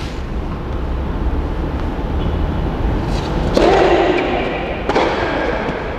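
Tennis racquets striking the ball during a rally: a few sharp pops, the loudest in the second half, over a steady low background rumble.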